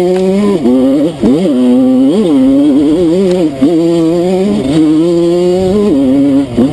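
Enduro dirt bike engine on the move, the throttle opened and closed again and again so the pitch keeps rising and falling, with several quick sharp revs and short dips between them.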